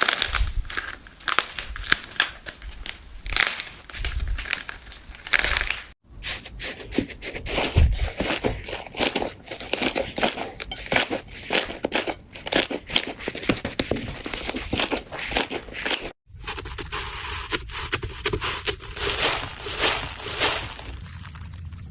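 Slime being squeezed and pressed by hand, giving a dense run of crackles and crunches. The sound drops out briefly twice, about six seconds in and again near sixteen seconds.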